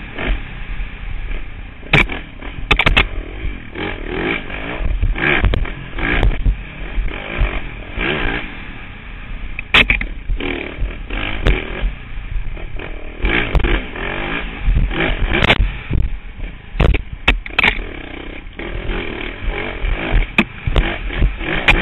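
Dirt bike engine revving up and down as it rides over rough whoops, heard through a helmet-mounted camera, with frequent sharp knocks and clatter as the bike and rider are jolted.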